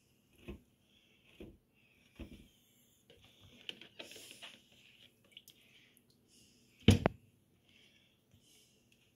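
Soft knocks and squishing of wet grow sponges being pushed into plastic grow cups in a hydroponic tray, a few light taps in the first seconds and one much louder knock about seven seconds in.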